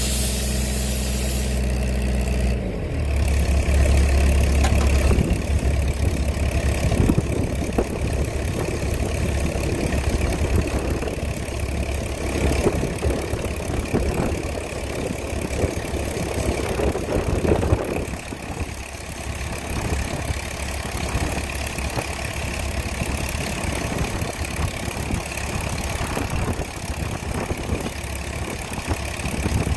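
Large engine running steadily, its low hum shifting in pitch about three seconds in.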